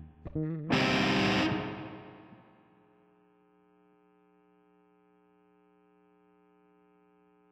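Distorted electric guitar through effects: a brief wavering note, then a chord struck about a second in that rings and fades, leaving a faint held note.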